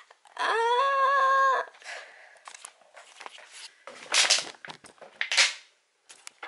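A drawn-out cry held at one high pitch for just over a second. It is followed by scattered rustling and handling noises, the two loudest about a second apart.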